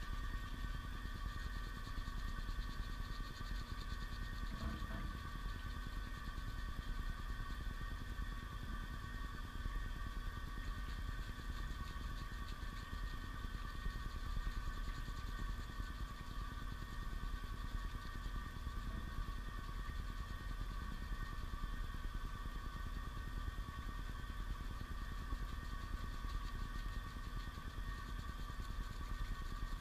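Tap water running steadily from a scrub-sink faucet into a stainless steel sink: a constant rushing rumble with a faint steady hum over it.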